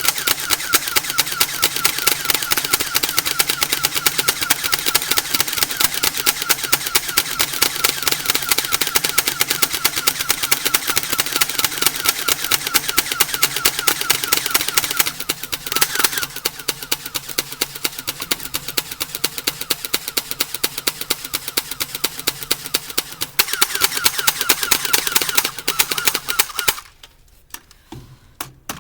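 Airsoft guns firing in rapid fire: a fast, even stream of shots that runs on continuously. Near the end the firing stops, leaving a few scattered single shots.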